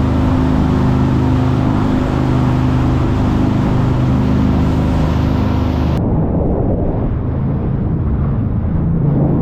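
A boat engine running steadily under way, with a constant low hum. About six seconds in it cuts abruptly to a duller, muffled rumble.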